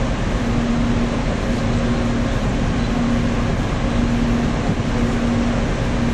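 Steady rumbling noise aboard a moving cruise ship, with a low hum that pulses about once a second.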